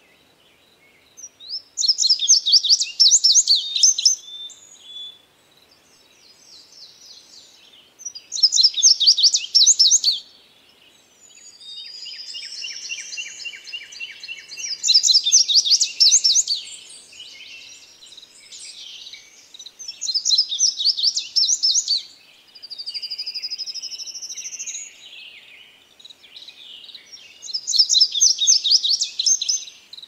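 A songbird singing, loud phrases of rapid high notes about two seconds long, repeated every six seconds or so. Between the phrases come softer chirps, a lower buzzy trill and rising whistled slurs.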